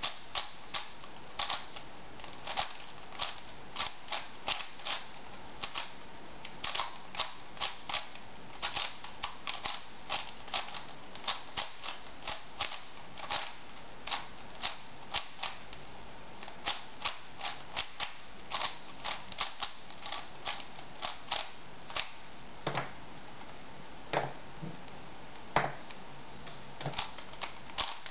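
Plastic layers of a 4x4 puzzle cube clicking as they are turned by hand: quick irregular runs of clicks, several a second, with short pauses. A few louder, deeper knocks come near the end.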